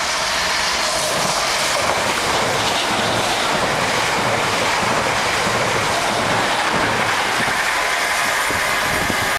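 Electric multiple-unit passenger train passing close by at speed: a loud, steady rush of wheels on the rails.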